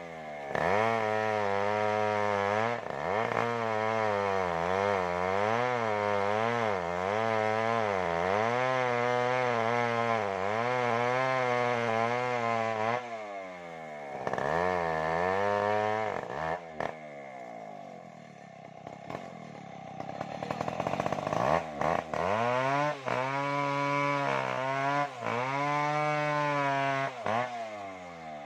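Stihl MS070 two-stroke chainsaw cutting wood, its engine pitch wavering up and down under load. It drops back briefly about halfway through, runs low and quieter for a few seconds, then revs up and cuts again near the end.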